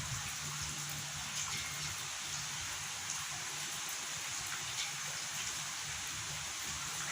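Steady rain falling, a constant hiss with scattered drops tapping on a surface.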